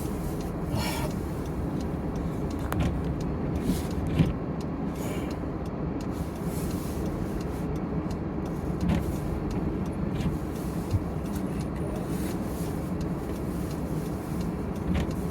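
Steady engine and road noise of a car driving, heard inside the cabin, with a few light clicks and taps along the way.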